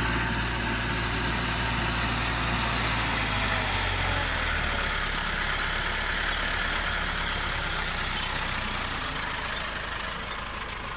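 Farm tractor's diesel engine running steadily under load as it pulls a zero-till seed drill through rice stubble.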